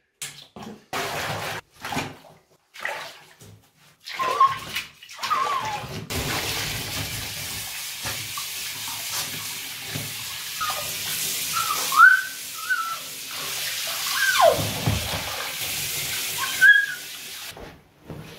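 Water splashing in short spurts for the first few seconds, then a handheld shower sprayer running steadily onto a dog's coat in a tub. The dog gives several short, high whines over the spray, one sliding down in pitch.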